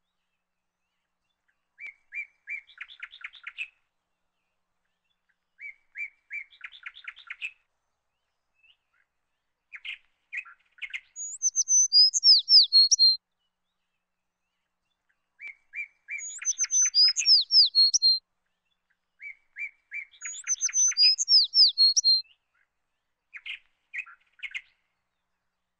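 Small songbird singing in repeated phrases: a few short chips run into a fast trill, and at times a louder phrase of high whistles that slide downward. The song stops fully between phrases, with no background noise.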